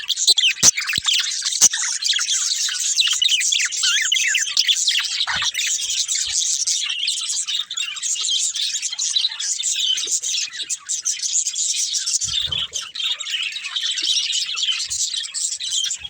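Several budgerigars chirping and chattering together, a dense, unbroken stream of short high chirps. A few sharp clicks sound in the first two seconds.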